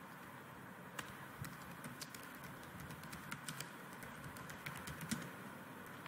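Faint computer keyboard keystrokes: about a dozen irregular key clicks as a short command is typed, starting about a second in and stopping about five seconds in.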